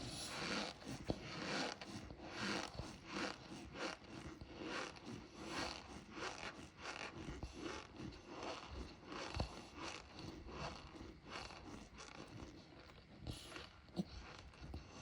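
Close-miked chewing of pressed cornstarch blocks: a steady run of short, squeaky crunches, about two a second.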